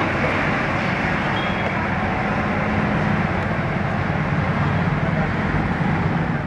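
Two EMD diesel locomotives running side by side on parallel tracks: a steady drone of their diesel engines mixed with the rumble of the trains approaching.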